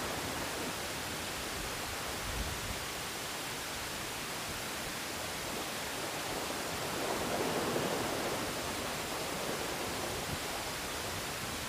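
Steady rushing of surf washing against concrete tetrapod breakwater blocks, with one louder wave surge about seven seconds in.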